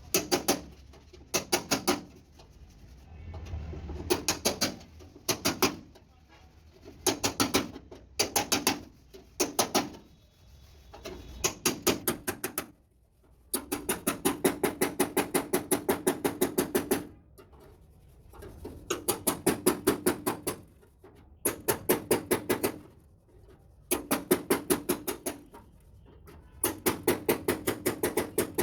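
Rapid hammer blows on sheet metal in bursts of a second or more, about seven or eight strikes a second, with short pauses between bursts: panel beating on a truck cab's body panels.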